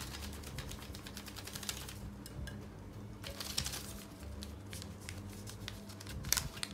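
Folded paper slips rattling and rustling inside a wire-mesh pen cup as it is shaken and a slip is drawn out by hand, a run of quick light clicks.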